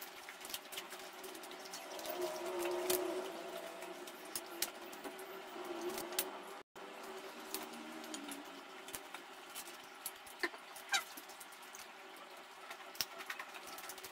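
Close-up eating sounds of people picking at roasted chicken legs with their fingers and chewing: scattered small wet clicks and lip smacks, with a soft low murmur for a couple of seconds early on.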